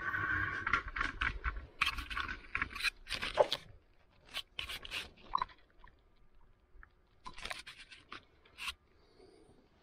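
Irregular scraping and clicking handling noises, busy for the first three and a half seconds, then a few scattered clicks and short scrapes.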